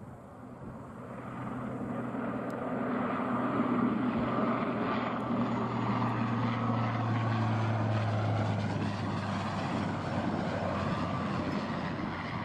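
De Havilland Canada Dash 8 Q400 turboprop on final approach, its twin PW150A engines and six-bladed propellers giving a steady propeller drone. The drone swells over the first two seconds and holds. A low propeller hum, with a second tone above it, fades out about nine seconds in as the aircraft passes and flares to land.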